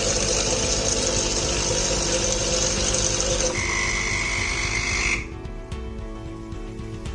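Philips espresso machine running in its descaling cycle: a loud steady hiss with a buzz. The buzz changes to a higher whistling tone about three and a half seconds in, and the whole sound stops suddenly about five seconds in.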